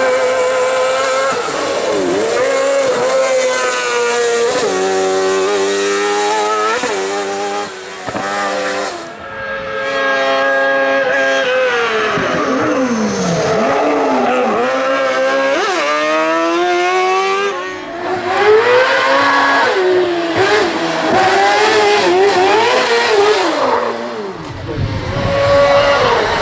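Motorbike-engined kart-cross buggies running hard. The engine note climbs and drops in repeated steps through gear changes and throttle lifts.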